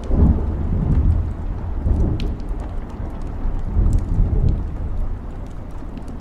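Fire crackling, with scattered sharp pops over a low rumble that swells and eases every second or two.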